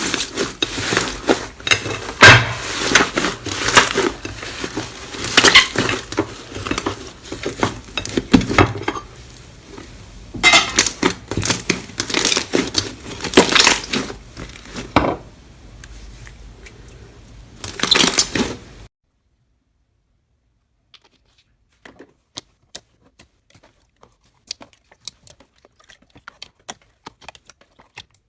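Slime being squeezed and pressed by hand, making dense crackling, popping clicks in irregular surges. About two-thirds of the way through, it cuts off abruptly to sparse, faint clicks.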